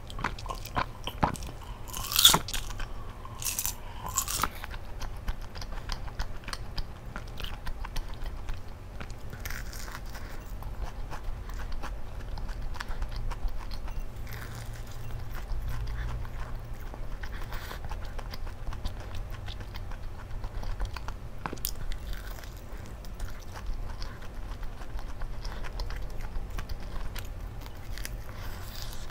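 Someone biting into and chewing fried chicken coated in seasoning powder, close to a clip-on microphone, with many small crunches. A single sharp knock sounds about two seconds in.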